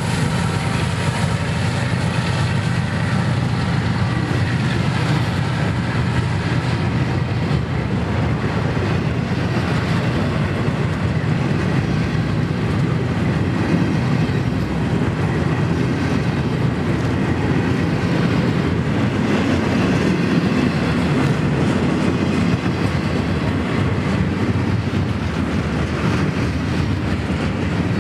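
Double-stack intermodal freight train rolling past at speed: a steady rumble and clatter of the well cars' wheels on the rails.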